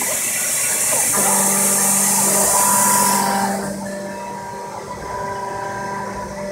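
Xenetech rotary engraving machine cutting a laminated plastic (lamacoid) sign: a steady high hiss with several whining tones that stop, start and change pitch now and then. The hiss drops away about three and a half seconds in, leaving the tones quieter.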